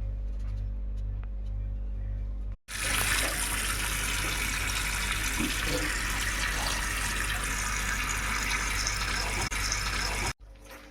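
Newly installed kitchen mixer tap running into the sink: a steady rush of water that starts suddenly about three seconds in and stops sharply near the end. Before it there is a low steady hum.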